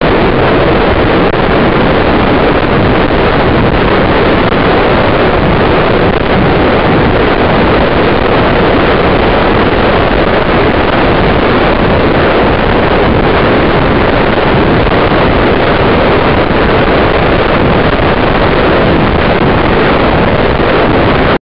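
Loud, steady rush of wind buffeting the onboard camera's microphone in a high-altitude balloon payload capsule as it descends through the air.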